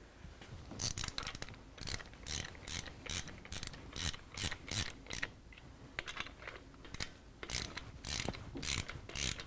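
Hand ratchet clicking in quick runs as the rear cam sprocket and pinion bolts are run down, starting about a second in.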